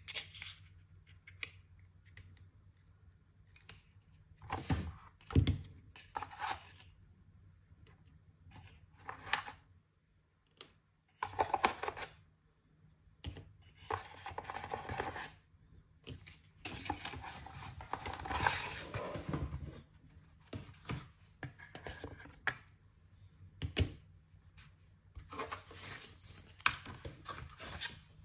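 Unboxing handling noise: metal clipless power-meter pedals turned in the hands and set down on a table with irregular knocks and clicks, and several longer stretches of rustling as packaging and printed papers are moved about.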